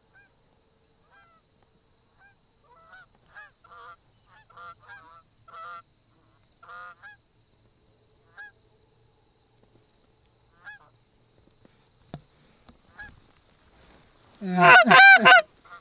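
A flock of Canada geese honking in flight, scattered and faint at first, then a burst of much louder, closer honking near the end.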